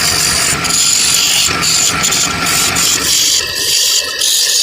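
A power tool running while working wood, a harsh hissing noise with a few brief dips. About three seconds in the low rumble drops away, leaving a higher whine.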